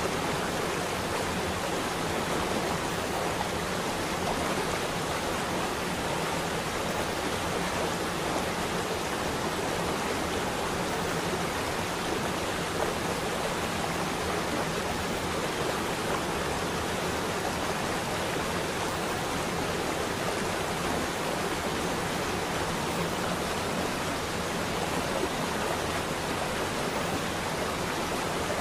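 Steady, even rushing noise like running water, unbroken and unchanging, serving as the masking sound bed of a subliminal audio track.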